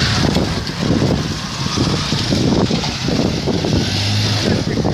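Engine of a moving vehicle running, heard from on board, with wind buffeting the microphone.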